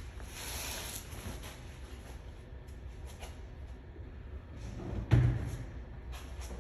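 A steady low rumble with a loud, deep thump about five seconds in, like something heavy being set down or a door or hatch closing.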